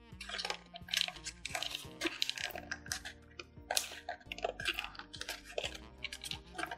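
Folded paper crackling and crinkling as it is pressed and shaped by hand, in many irregular sharp crackles, over background music.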